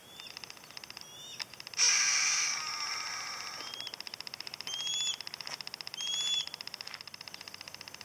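Harris's hawks calling: one long, harsh, rasping scream about two seconds in, then three short rising squeals a second or so apart.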